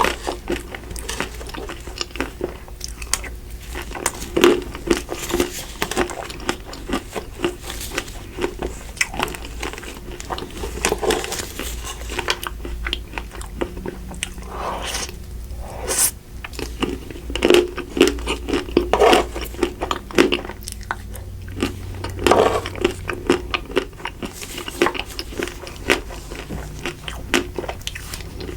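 Close-miked biting and chewing of Magnum Double Pistachio ice cream, with the chocolate coating crunching in dense, irregular crackles and a few louder snaps along the way.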